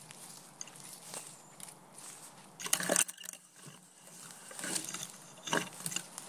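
Walking through woodland undergrowth: leaf litter and twigs crunching underfoot, and leaves brushing past. It comes as irregular crackles, the loudest burst nearly halfway through and another run near the end.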